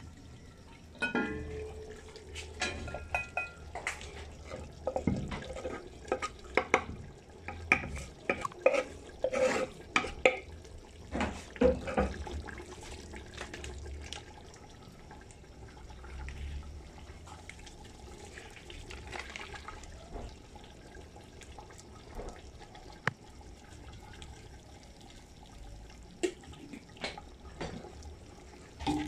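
Kitchen work with water: irregular clinks and knocks of pots, dishes and utensils over running or splashing water. The clatter is busiest in the first half and thins out after that.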